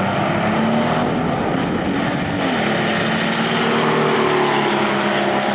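Diesel pickup trucks running at full throttle down a drag strip, the engine note loud and steady. Its pitch rises, dips briefly about two and a half seconds in, then holds again.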